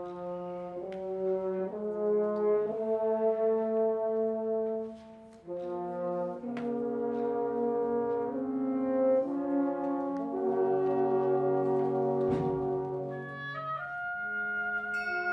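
A wind orchestra's brass section playing slow, sustained chords, with a short break about five seconds in. Higher instruments join near the end.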